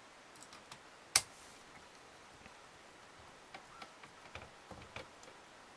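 Screwdriver turning a small screw into the metal bracket that holds the optical pickup's guide rod: one sharp click about a second in, then a run of faint small clicks and ticks of the tool on the screw and metal parts.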